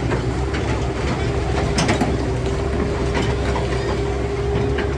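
Heavy diesel construction machinery running steadily, with a steady whine over the engine and scattered sharp metal clanks, the sharpest about two seconds in.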